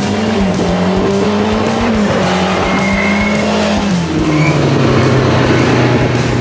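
Rally car engine running hard at full throttle on a stage, its pitch dropping and climbing with each gear change, over background music.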